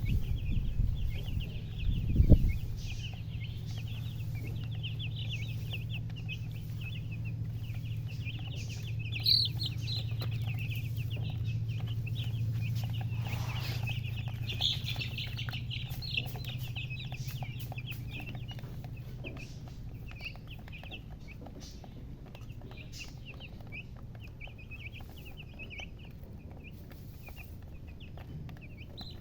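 A group of chicks peeping continuously, many rapid high-pitched chirps overlapping, over a low steady hum; a thump about two seconds in.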